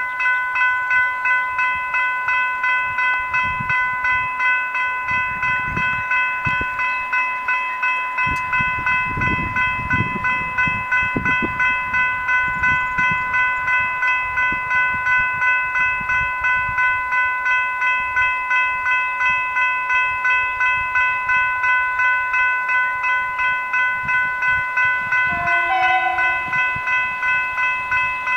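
Electronic level-crossing bells (General Signals Type 3 e-bells) ringing in a fast, even, repeating strike. This is the warning sound of an activated railway crossing with its boom gates lowered for an approaching train.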